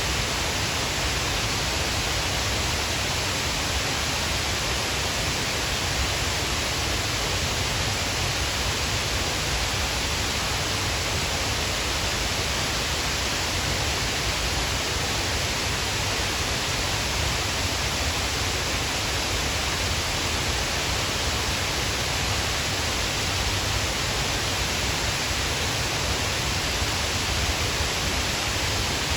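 Shiraito Falls, a wide curtain of many thin cascades, rushing steadily: an even, unbroken roar of falling water that does not change.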